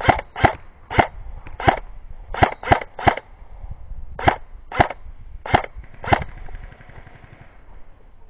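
Airsoft gun firing about eleven single shots at an uneven pace, each a short sharp crack, stopping a little after six seconds.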